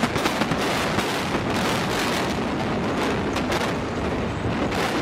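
Explosive demolition charges cracking in a rapid string as a concrete high-rise is imploded, merging into the continuous rumble of the tower collapsing.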